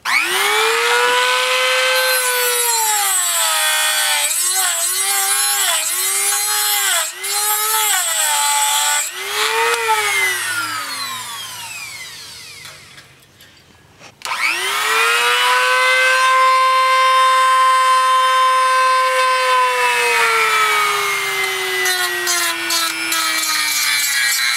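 Handheld high-speed rotary tool grinding down a broken-off bolt stub on a steel motorcycle frame: a high whine whose pitch dips each time the bit bears into the metal. It winds down and stops about halfway, then starts up again and sinks steadily in pitch under load near the end.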